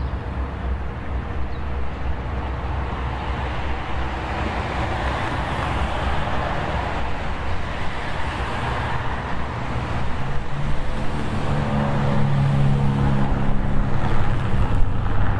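Road traffic noise: a steady rush of passing cars that grows slowly louder, with a low engine hum coming up in the last few seconds.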